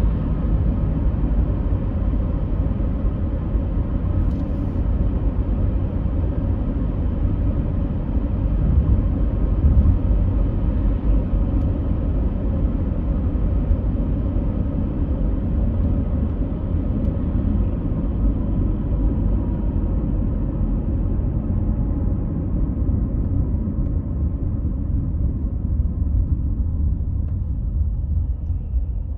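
Steady deep rumbling noise with a faint hum over it.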